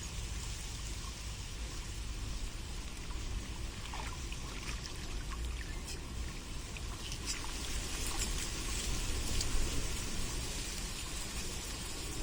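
Water trickling steadily, with a low steady rumble underneath and a few faint short high sounds in the middle.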